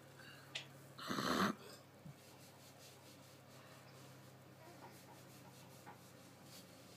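Quiet, steady low hum of background noise, with one short breathy rush of noise about a second in and a couple of faint clicks.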